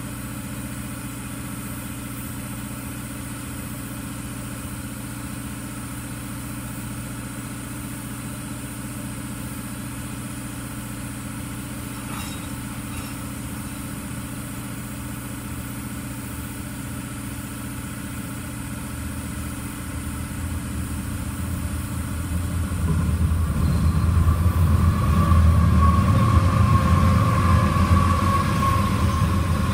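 Intermodal freight train rolling past: a steady low engine drone with the rumble of the cars, swelling louder about twenty seconds in. A high steady tone joins the noise near the end.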